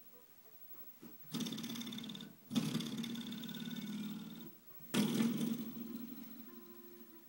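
Coiled-spring doorstop flicked by hand three times, each a buzzing 'doing' twang that rings and fades over a second or two.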